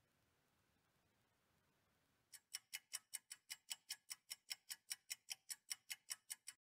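Near silence, then about two seconds in a clock-ticking sound effect starts: short, crisp ticks, evenly spaced at about five a second.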